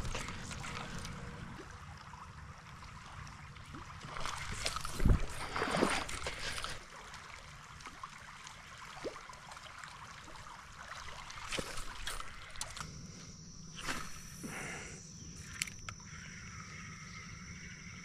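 Creek water trickling and sloshing, with a burst of louder splashes and a sharp thump about four to six seconds in. About thirteen seconds in, a steady high-pitched whine joins the water.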